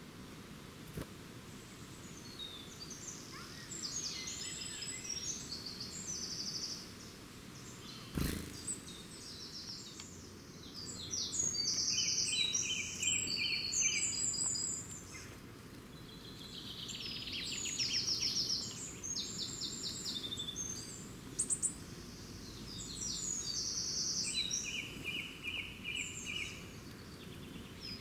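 Several wild birds singing, overlapping phrases of fast trills and repeated chirping notes that come and go every few seconds. A single sharp knock about eight seconds in.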